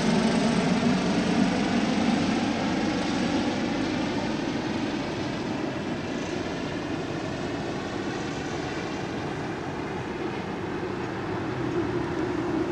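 Airbus H145 air-rescue helicopter in flight, its twin turbines and rotor a steady wash of noise that fades slowly as it moves off and then grows louder again near the end.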